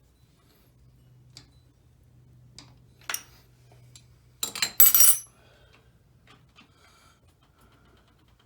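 Metal hand tools clinking and clanking against each other and the engine: a sharp clink about three seconds in, then a louder cluster of clanks a little later, with a few small clicks between.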